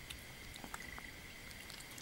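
Kitten eating boiled meat and egg from a ceramic bowl: a few faint wet mouth clicks and smacks, over a faint steady high whine.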